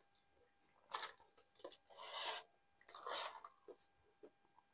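Close-miked eating sounds: soft chewing and mouth clicks, then naan bread being torn apart by hand, with two longer rasping stretches about two and three seconds in.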